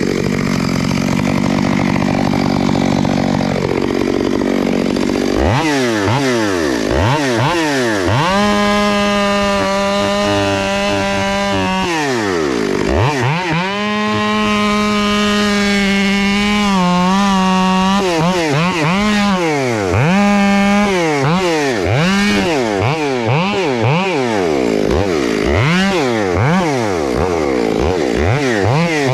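Two-stroke chainsaw cutting a bore-and-release felling cut: for the first few seconds it runs steady at a lower pitch under load in the wood, then the throttle is blipped up and down repeatedly, with stretches held at full revs.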